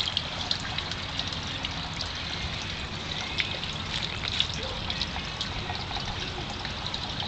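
Raw sewage trickling and splashing from a leaking manhole as it runs over concrete and rocks, a steady running-water sound full of small irregular drips.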